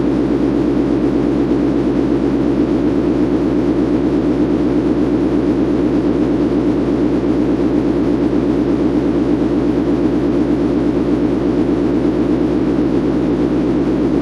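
Steady, unchanging hum meant to sound like a commercial supermarket freezer, made of several low steady tones over a faint hiss.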